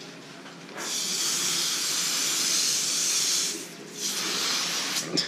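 Pistol-grip hose spray nozzle hissing as water jets onto halibut fillets: one burst of about three seconds, then a shorter one. A couple of sharp clicks near the end.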